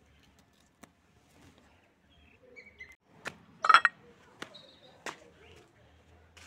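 Scattered taps and rustles from handling plants and a glass plate. The loudest is one short ringing clink a little past halfway, with a few faint high chirps around it.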